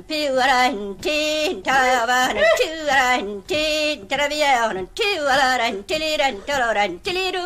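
A woman singing a bagpipe tune in canntaireachd, the pipers' mnemonic syllables, so that her voice imitates the pipes. She sings unaccompanied in short, quick phrases that break about every half second, her pitch sliding between notes.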